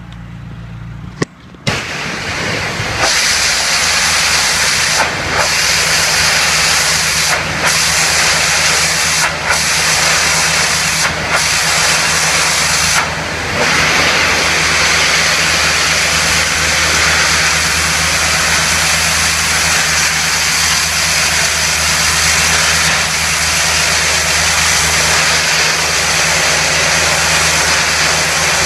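Pressure washer running steadily, with a low engine hum under the loud hiss of the high-pressure water jet blasting brick. The spray starts about two seconds in and cuts out briefly five times in the first half as the trigger is let go.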